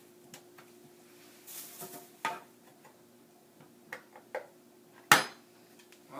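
Vidalia Chop Wizard dicer being worked on mushrooms: scattered plastic clacks and knocks, the loudest a sharp knock about five seconds in, over a faint steady hum.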